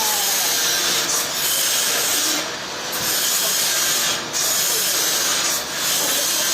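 Sawmill saw cutting through a trembesi log: a steady, loud, hissing cut that dips briefly about every one and a half seconds.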